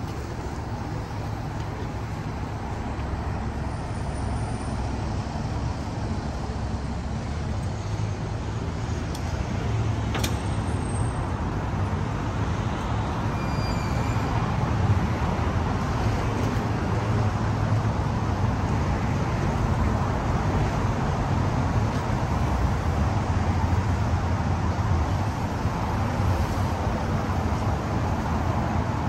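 Steady city street traffic noise, growing a little louder over the first half and then holding.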